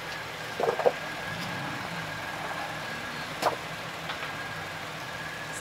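Jeep Wrangler engine running at low revs as it crawls slowly up a rock slab, with a faint steady high whine. A brief louder noise sounds about half a second in, and a single sharp knock about three and a half seconds in.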